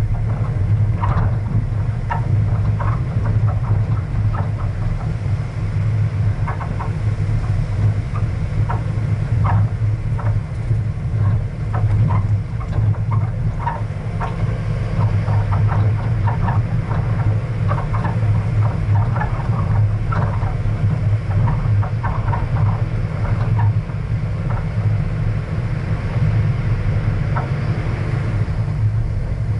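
Vehicle driving along a stony dirt road: a steady low engine hum with frequent small irregular clicks and rattles as it bumps over the gravel.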